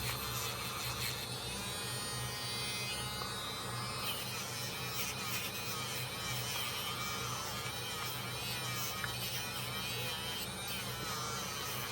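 Small electric tool buzzing steadily while it scrubs rust off a carbon-steel pocketknife blade, with scratchy scraping of metal over the hum.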